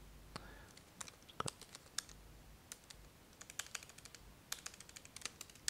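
Faint typing on a computer keyboard: a run of quick, irregular key clicks with short pauses between bursts.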